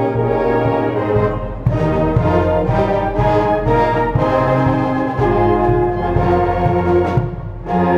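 Youth concert band of brass, woodwinds and percussion playing a piece, with held brass chords. The music drops briefly in volume near the end, then the band comes back in.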